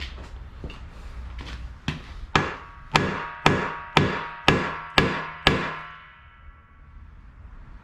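A run of hammer blows on something that rings: a few light taps, then about eight hard strikes at roughly two a second, each leaving a short ringing tail. They stop abruptly a couple of seconds before the end.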